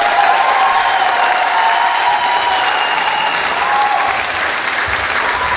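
Audience clapping and cheering at the end of a dance routine, with long held shouts over the applause that fade out about four seconds in.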